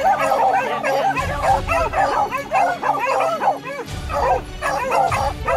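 A pack of beagles yelping and baying at a wild boar, many high calls overlapping without a break.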